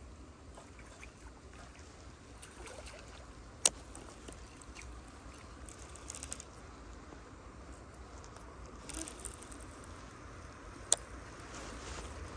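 Faint steady outdoor background with two sharp clicks, one about four seconds in and one about a second before a cast, from handling a baitcasting reel. The click just before the cast fits the reel's thumb bar being pressed to free the spool.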